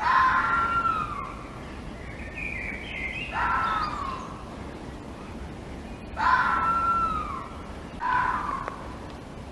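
Red fox calling: four short calls a few seconds apart, each dropping in pitch at its end.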